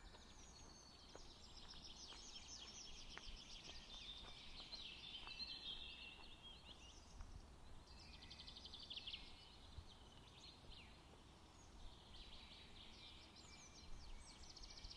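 Faint outdoor ambience: high-pitched chirping trills that come and go in stretches of a few seconds over a faint low rumble.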